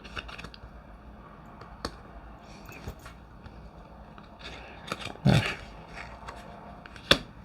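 Glossy tarot cards being handled and laid down, with a few light clicks and taps, and a short, louder low sound about five seconds in.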